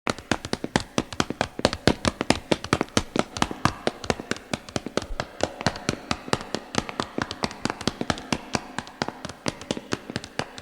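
Anime running footsteps sound effect: a quick, steady patter of sharp footfalls, about seven or eight a second.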